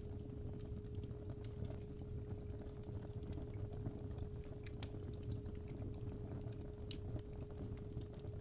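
Crackling fireplace fire, irregular sharp pops and ticks over a low rumble, with a steady 417 Hz tone sounding underneath.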